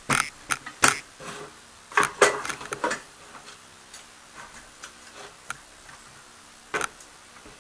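Handling noise from a metal-plate HHO cell stack and a plastic battery box being moved and set down: a quick string of sharp clicks and knocks in the first three seconds, then lighter ticks and one more knock near the end.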